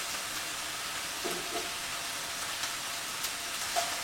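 Diced onion and garlic frying in hot oil in a skillet: a steady sizzle with a few faint crackles.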